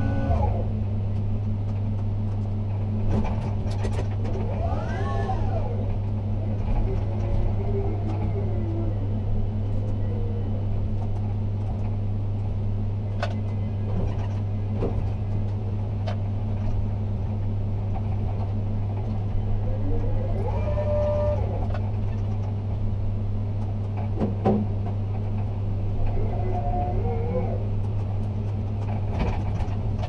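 Ship-to-shore gantry crane heard from the operator's cab: a steady low electrical hum, with the drive motors whining up and then down in pitch several times as the trolley and hoist speed up and slow down under joystick control. A few sharp clicks and knocks come through as well.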